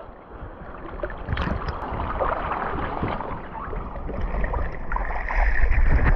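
Sea water splashing and sloshing as a diver hauls himself out of the water over the tube of an inflatable boat, with wind rumbling on the microphone. It grows louder over the last couple of seconds.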